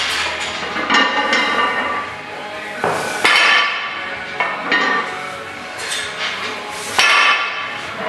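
Several sharp metallic clanks at irregular intervals, each ringing on briefly: iron weight plates or a barbell knocking together in a gym.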